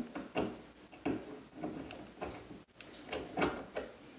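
Scattered light clicks and knocks of a cabinet door and its concealed hinge being handled and fitted at the top hinge.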